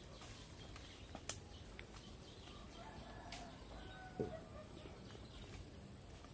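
Quiet outdoor ambience with faint bird calls, a sharp click about a second in and a short falling call a little after four seconds.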